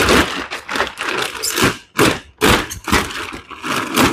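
Thick plastic wrapping on a foam mattress crinkling and rustling in a quick run of irregular bursts as it is pulled and peeled off the mattress.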